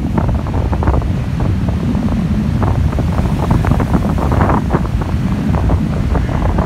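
Strong gusty wind buffeting the microphone in a heavy, uneven rumble, with sea surf washing underneath.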